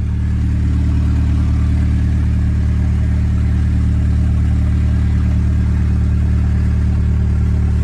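Volkswagen Jetta TDI turbodiesel engine running at a steady speed, a loud even drone that swells a little in the first second and then holds.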